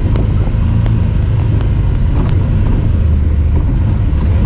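Honda Talon 1000R side-by-side's 999 cc parallel-twin engine running steadily while driving, a loud low rumble, with a run of sharp ticks during the first two seconds.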